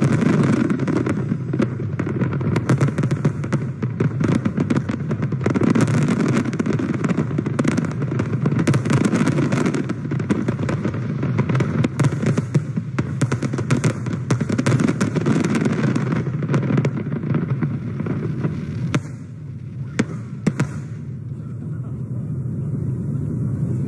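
Aerial fireworks display going off in a dense finale: many rapid bangs and crackling bursts packed closely together. About nineteen seconds in it thins to a few last single bangs, then gives way to a quieter steady background noise.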